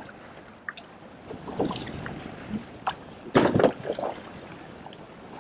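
Wind and choppy water slapping against a small fishing boat's hull, uneven, with a louder burst of noise a little past the middle.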